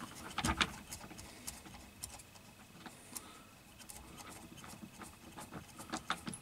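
Light, irregular clicks and taps of small metal terminal parts and wire ends being handled by hand as wires are fitted to motor terminals, with a slightly louder knock about half a second in and a quicker run of clicks near the end.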